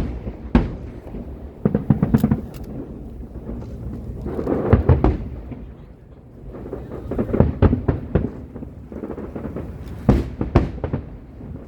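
Aerial fireworks bursting in irregular volleys of sharp bangs with a deep rolling rumble between them. The volleys come about every two to three seconds.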